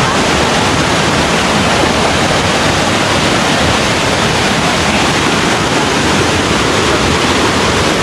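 Forest stream rushing over rock slabs and through a narrow channel in a small waterfall cascade: a loud, steady rush of whitewater close by.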